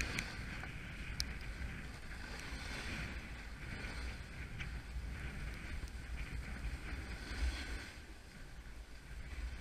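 Snowboard sliding over snow with a hiss that rises and falls, with wind rumbling on the microphone of the rider's camera.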